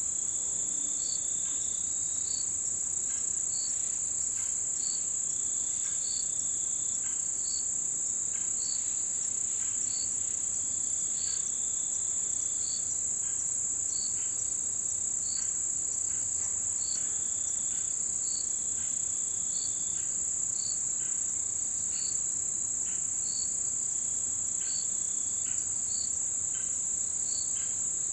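Chorus of autumn insects. One insect keeps up a steady, high, unbroken trill. Another gives a short chirp about once a second, a little lower, and a third adds trills of about a second every few seconds.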